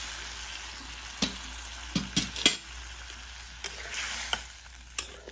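Hot water hitting a sizzling iron kadai of crab curry, with a hiss that fades over the first second. A metal spatula then stirs the curry and clinks against the pan several times, loudest in a quick group of knocks near the middle.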